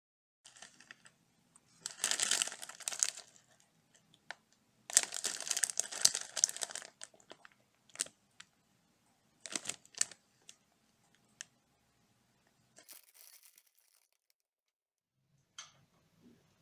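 Plastic snack bag crinkling as it is handled and turned over, loudest in two long stretches of crackling, then a few short separate crinkles.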